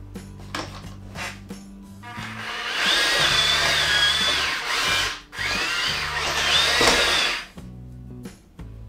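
Electric drive motors and gearbox of a WPL E1 1/16 RC tracked vehicle whining as it climbs a stack of two books. The whine ramps up about two seconds in, holds, drops out briefly around five seconds, comes back and stops at about seven and a half seconds. Background music plays throughout.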